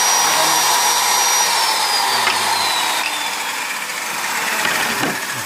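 Hand circular saw mounted under a homemade table saw, running with a loud high whine; about a second and a half in the whine starts to drop in pitch as the motor slows.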